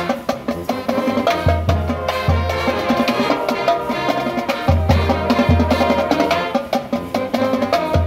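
High school marching band playing a tune: clarinets, saxophones, trumpets and trombones over snare and bass drums, with sousaphones holding long low notes in places.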